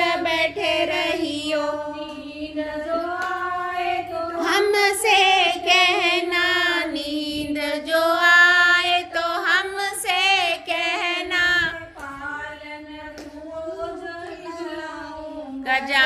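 A woman singing a devotional Ganesh bhajan, one melodic line of long, wavering held notes with short breaks between phrases.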